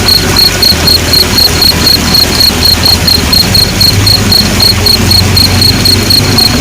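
Night insects, most likely crickets, chirping in a steady high-pitched pulse about four or five times a second, over a low steady hum.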